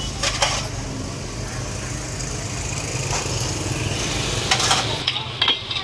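A steady low engine hum with a few short metallic clinks of utensils against steel pots.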